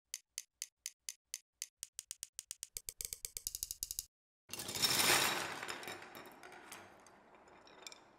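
A series of sharp clicks, at first about two a second, speeding up into a fast rattle over about four seconds. They stop, and after a short gap a noisy swell rises and dies away over the next couple of seconds, with a few scattered clicks.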